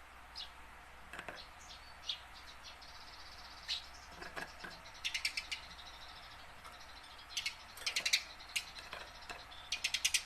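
Eurasian tree sparrow chirping: scattered single chirps, with several quick runs of rapid chirps about five, eight and ten seconds in.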